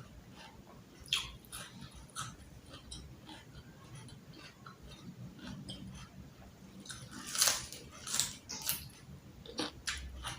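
Close-miked eating sounds: irregular crunching, chewing and wet lip smacks, loudest about seven and a half seconds in.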